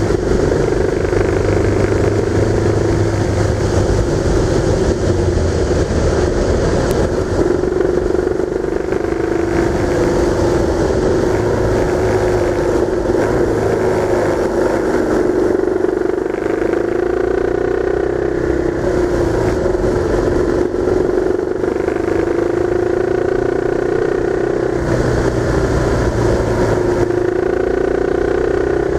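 Engine of the vehicle being driven, running steadily under way, its note rising and falling with the throttle through the bends, over steady road and wind noise.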